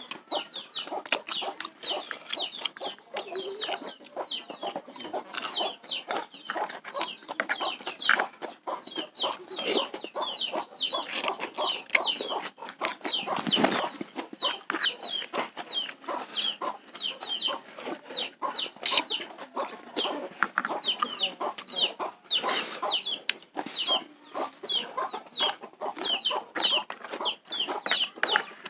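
Chickens clucking, with rapid high peeping that goes on throughout, over close sharp clicks from chewing and a spoon on a plastic bowl.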